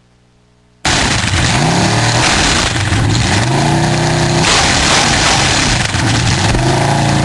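Student-built V8 engine running loud and being revved, its pitch climbing in repeated blips. It cuts in suddenly about a second in, after a near-silent gap.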